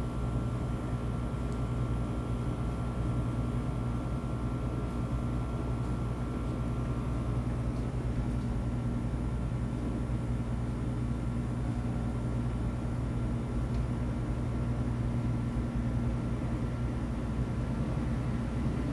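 Steady low mechanical drone with a deep hum, like an engine or machine running without a break; a higher steady whine in it fades out a little before halfway.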